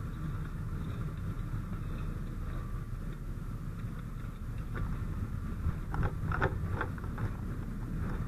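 Steady low rumble of a fire engine running, with a few short clicks and knocks in the second half.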